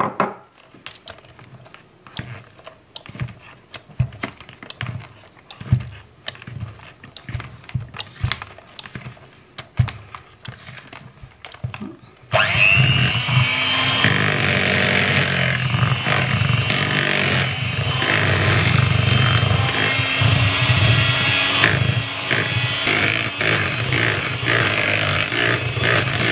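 Scattered light clicks and knocks, then about twelve seconds in an electric hand mixer switches on. It runs steadily, its beaters whipping butter, cream cheese and icing sugar into frosting.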